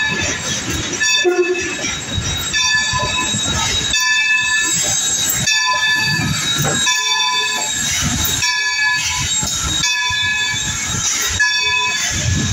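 A steam-hauled train rolling slowly past, led by steam locomotive No. 26. A high, multi-toned squeal cuts in and out every second or so over a low, uneven rumble and chuffing.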